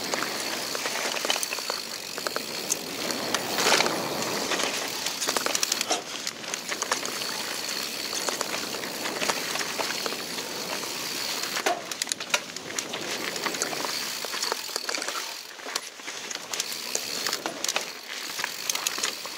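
Mountain bike riding fast down a dirt singletrack: a steady rush of knobby tyres rolling over dirt, with frequent sharp clatters and rattles from the bike as it runs over roots and bumps.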